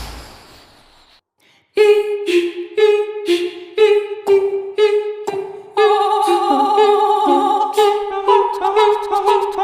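Human voices singing a cappella in imitation of a suspenseful TV score. After a short fade to silence, short separate notes come about two a second. About six seconds in, they give way to several voices holding notes in harmony over a lower part that moves in steps.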